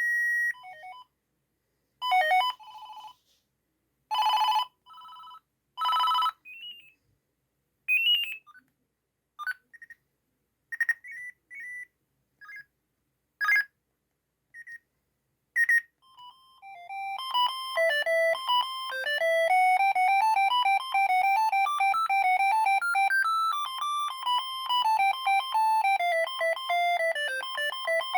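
Siemens ME45 mobile phone playing its built-in ringtones: a string of short electronic beeps and brief jingles with silent gaps between them, then, from about 17 seconds in, a continuous fast beeping ringtone melody.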